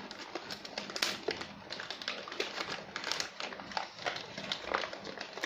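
Paper and cardboard rustling and crackling in quick irregular clicks as a stiff, glued-shut gift box is pulled and worked open by hand.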